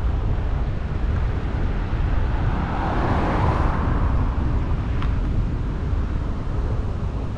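Wind rumbling on the microphone of a camera riding on a moving bicycle, with a vehicle passing about three seconds in and a brief click about five seconds in.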